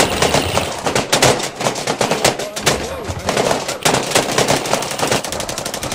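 Airsoft guns firing rapid automatic bursts, a fast, uneven rattle of shots.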